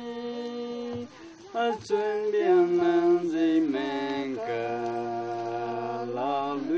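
Unaccompanied singing in long held notes that step up and down, a higher voice over a lower one, with a short breath pause about a second in.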